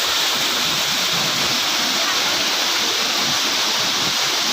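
Waterfall rushing in a steady, loud roar of falling water.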